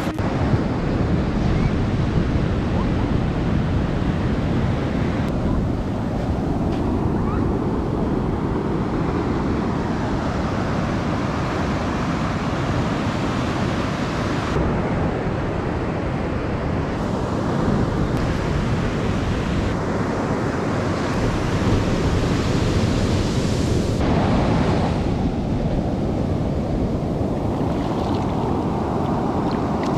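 Ocean surf washing in, with wind buffeting the microphone. The noise is steady but its character shifts abruptly several times.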